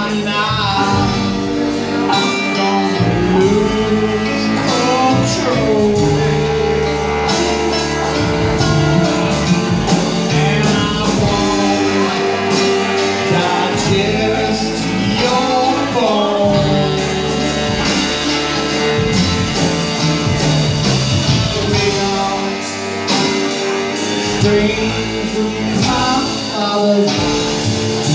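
Live band music from saxophone, banjo, electric guitar, upright bass and drums, with a bending melodic lead line over a steady rhythm.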